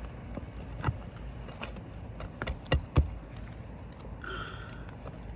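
Sharp clicks and knocks of a metal tool working a roofing nail out from under a lifted asphalt shingle, several in quick succession between one and three seconds in.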